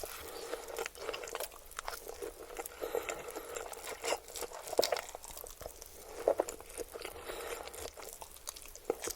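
Close-miked chewing and biting of spicy noodles, with many irregular short clicks and crunches.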